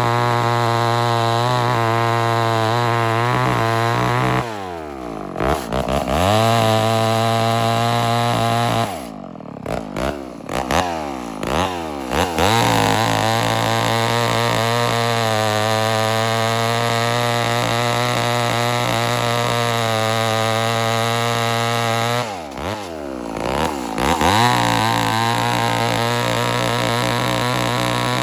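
Homelite Super XL-923 82cc two-stroke chainsaw running at full throttle while cutting wood. Three times the engine speed drops and climbs back up, about four seconds in, around nine to twelve seconds in, and about twenty-two seconds in.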